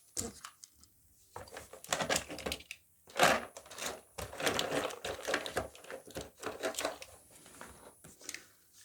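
Plastic fidget toys being handled and knocked together: irregular runs of quick clicks and clatters.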